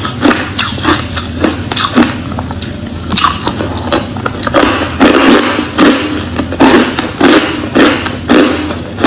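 Crushed ice being chewed close to the microphone: repeated loud, crisp crunches, coming faster and denser from about halfway through.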